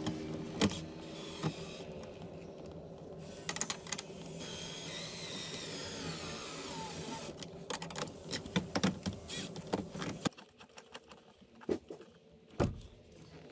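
Cordless drill/driver running in bursts, driving the screws that fasten a boat's captain's chair to its mount, followed by a run of sharp clicks and knocks from handling the seat and hardware.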